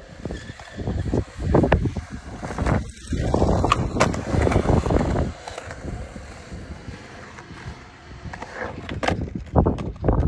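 Skateboard wheels rolling over a concrete skatepark, swelling as the board rides the bumps, with a few sharp clacks of the board on the concrete.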